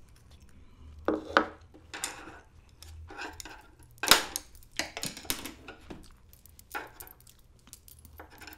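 Chopsticks and a spoon clicking and tapping against bowls as food is picked up: a string of separate short clicks, the sharpest about four seconds in.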